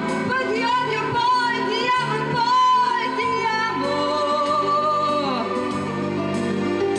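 A woman singing an Italian pop ballad live into a microphone over a backing track, holding long wavering notes.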